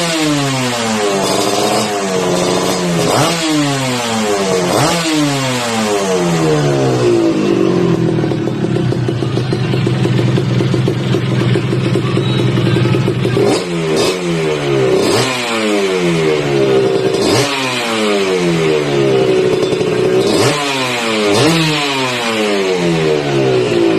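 Freshly rebuilt Kawasaki KMX200 single-cylinder two-stroke engine, revved in quick blips every couple of seconds, each rev falling back down. It settles to a steady idle for several seconds in the middle before the blipping resumes.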